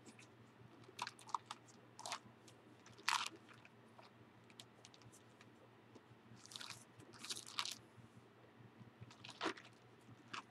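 Thin Bible pages crackling and rustling as they are handled and turned: several short crisp crackles, the loudest about three seconds in, and a few longer rustles a little past the middle.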